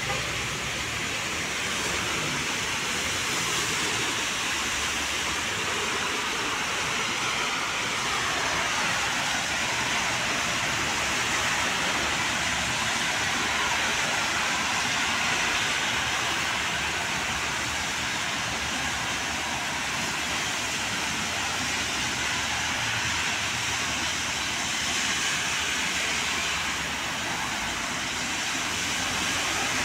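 Steady rushing hiss of heavy rain, with the swish of cars and motorbikes driving through standing water on a flooded road.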